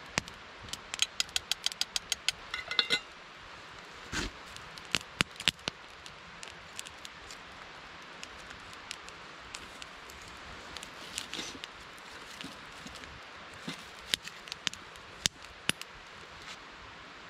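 Scattered sharp clicks and knocks. A quick run of about eight comes in the first seconds, with a short metallic ring just before three seconds, and more isolated clicks follow later.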